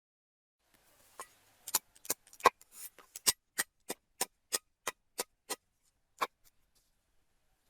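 A run of sharp clicks or taps, scattered at first, then settling into an even beat of about three a second, with one last tap after a short pause.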